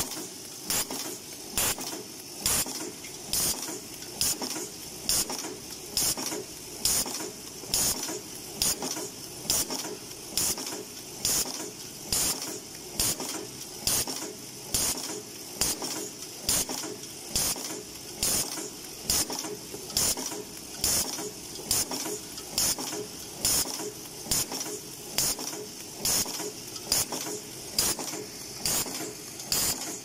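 Brazing ring inserting machine for U-tubes cycling steadily: a short hiss of air repeats about every 0.8 seconds, over a continuous mechanical rattle and hum.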